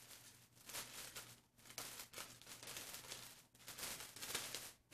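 Clear plastic garment bag crinkling and rustling in uneven bursts as hands handle it and open it.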